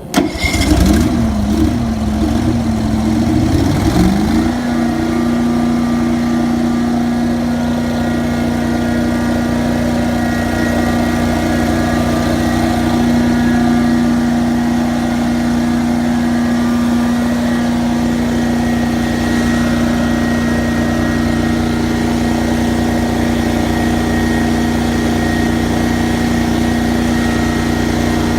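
Prochem Blazer XL truckmount's Vanguard 18 V-twin engine starting up. Its speed wavers for the first four seconds or so, then it settles into a steady run, driving the unit's belt-driven blower and pump.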